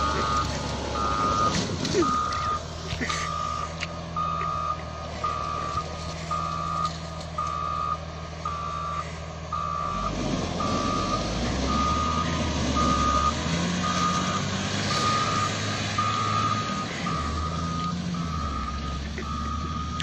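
Construction vehicle's reversing alarm beeping steadily, about three beeps every two seconds, over the low sound of its engine running, which changes note about halfway through.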